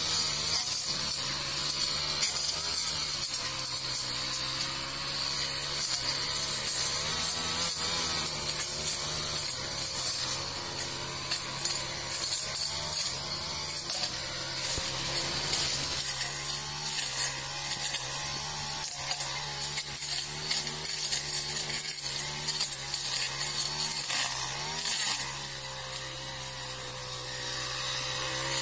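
Honda GX four-stroke brush cutter running at high throttle while its blade cuts through overgrown weeds and brush. The engine note sags slightly and recovers as the blade takes load, and the loudness rises and falls with each swing.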